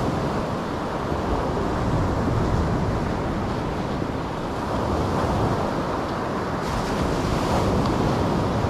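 Surf breaking and washing up a sandy beach, a steady rush that swells and eases with the waves, with wind buffeting the microphone.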